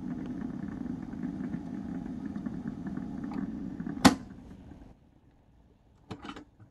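Cassette deck of a multi-audio recorder/player giving off a steady low buzz, which the owner links to the phone held near the player. About four seconds in there is a sharp click, after which the buzz fades away. A couple of brief clicks come near the end.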